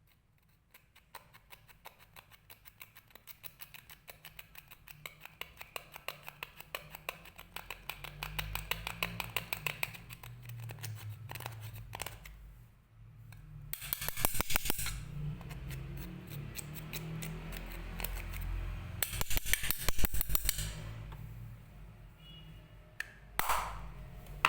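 Clear slime being kneaded and squeezed as makeup is worked into it, making quick wet clicks and pops several times a second. There are longer, louder squelching stretches about halfway through and again past the three-quarter mark.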